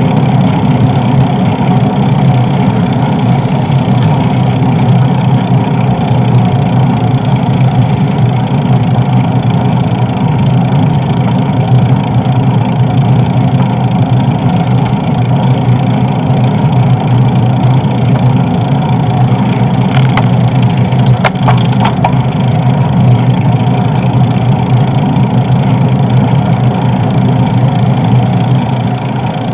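Steady wind and road rumble on a bicycle-mounted camera riding at speed, with a few sharp clicks about two-thirds of the way through.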